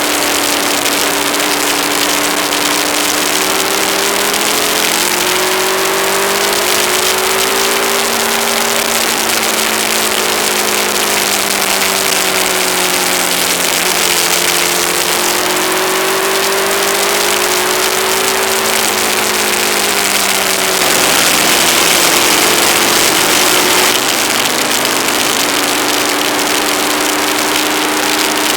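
Aprilia ETV1000 Caponord's V-twin engine running on the move, its pitch slowly rising and falling as the bike speeds up and slows, under heavy wind hiss on the camera's microphone. About two-thirds of the way in the engine fades for a few seconds while the wind hiss grows louder, then the engine comes back.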